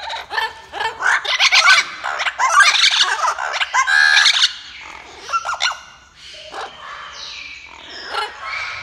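Blue-fronted amazon parrots squawking and screeching: a dense run of loud calls for the first four seconds or so, then a few scattered calls.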